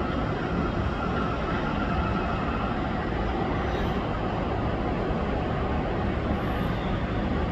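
Hyundai Rotem MRT train running along an elevated viaduct, heard from a distance as a steady rumble, with a faint whine that fades after the first few seconds.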